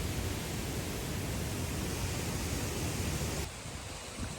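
Steady rushing of rain-swollen mountain stream water. It cuts off abruptly about three-quarters of the way through, leaving a quieter outdoor background.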